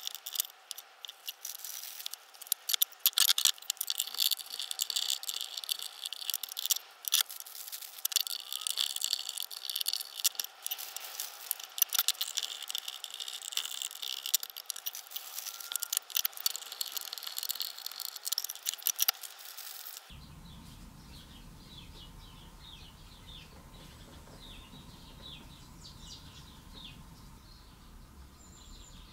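Dense, irregular scratching and rattling with many sharp clicks, from small Briggs & Stratton carburettor or fuel-tank parts being worked on. About two-thirds of the way through it cuts off suddenly to a quieter steady low hum with faint high chirps.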